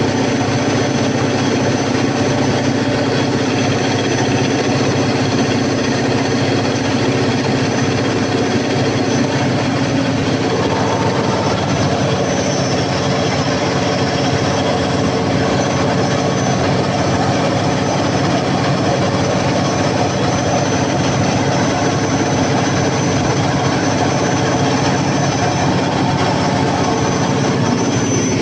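Cummins KTA50 16-cylinder turbocharged diesel generator set running at a steady constant speed during a load test after a general overhaul: a loud, even drone with a thin high whine over it.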